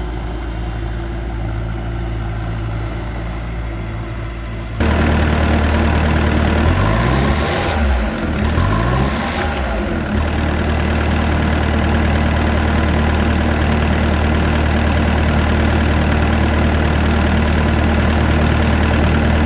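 Bobcat T595 compact track loader's diesel engine running at low idle, then suddenly louder about five seconds in; its pitch swings up and down a few times, then holds steady at a higher speed.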